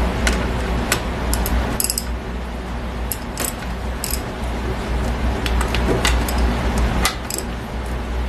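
Socket ratchet clicking in short, irregular runs, with light metal clinks, as the bearing cap bolts on a Ford 9-inch differential carrier are snugged up. A steady low hum sits under it.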